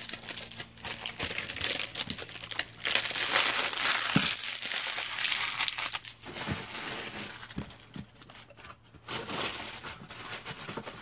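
Plastic card-supply packaging crinkling and rustling as a pack of top loaders is handled. The crinkling is densest in the first half, then thins out with a few light knocks.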